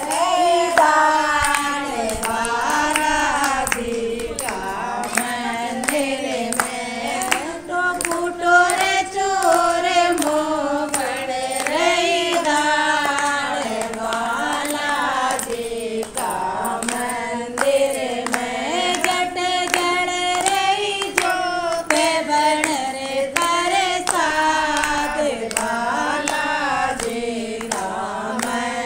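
Devotional bhajan to Balaji: a voice sings a melodic, ornamented line throughout, accompanied by steady rhythmic hand clapping.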